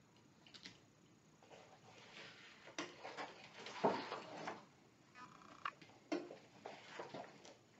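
Faint rustling and crinkling of the clear plastic carrier sheets of glitter iron-on vinyl being handled and laid onto a shirt, with a few soft taps and brushes, the loudest about three and four seconds in.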